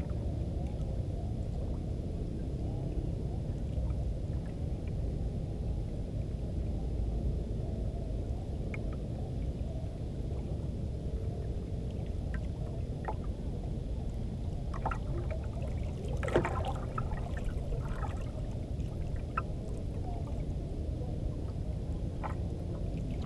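Steady low rumble of wind and sea around a small boat, with scattered light knocks and clicks and a short cluster of sharper knocks about sixteen seconds in.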